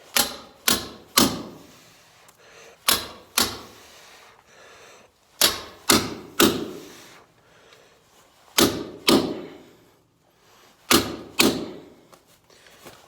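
Hammer blows on a steel chisel chipping frozen muck: about a dozen sharp strikes in twos and threes, each group about half a second between blows, each strike with a short ring.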